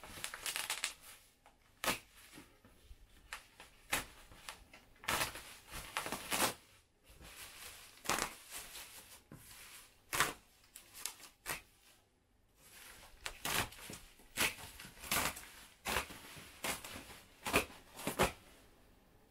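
Bubble wrap and packing tape being cut with a utility knife and pulled off a cardboard box: irregular bursts of crinkling, rustling and tearing.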